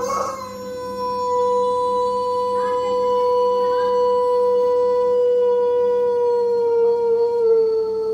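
Pelung rooster giving one long drawn-out crow, the breed's prized long crow: a single held note, steady for most of its length and dipping slightly lower near the end.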